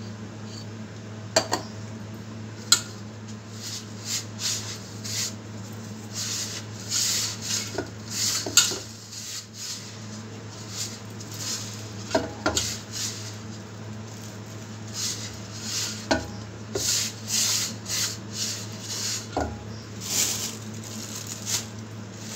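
Hands rubbing and mixing a crumbly wheat-flour, semolina and ghee mixture in a steel bowl: irregular gritty scraping of the mix and fingers against the metal, with two sharp clinks of a steel tumbler on the bowl a couple of seconds in. A steady low hum runs underneath.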